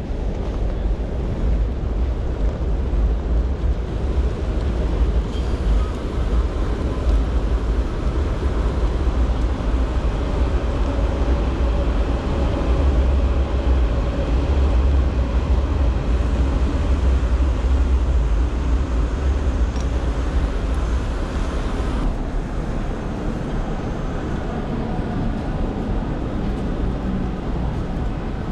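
Wet city ambience: a steady hiss of rain and traffic on wet roads under a deep rumble from a double-decker train crossing the elevated railway viaduct, strongest around the middle. About three quarters of the way through, the hiss drops sharply as the sound moves under a covered walkway.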